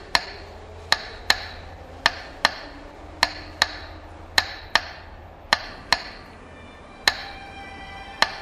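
Sharp, ringing clicks in pairs about a third of a second apart, a pair roughly every second, over a faint held tone.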